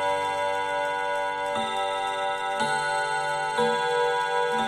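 Junghans mantel clock's W64 movement chiming on its five nickel-silver gong rods. The hammers strike about once a second, and each note rings on under the next.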